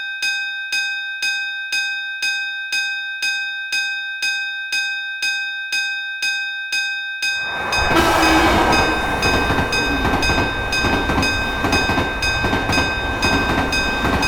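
Railway level-crossing warning bell dinging steadily, about twice a second. About seven seconds in, the loud rumble of a passing train comes in over it, with the bell still ringing underneath.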